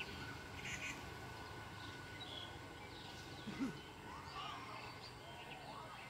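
Faint outdoor ambience with scattered short bird calls and chirps, and one brief low call about three and a half seconds in.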